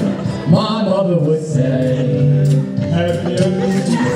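A man singing with music, in long held notes.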